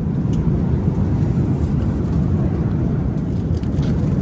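Steady low rumble of an Airbus A380's passenger cabin in flight: engine and airflow noise at an even level.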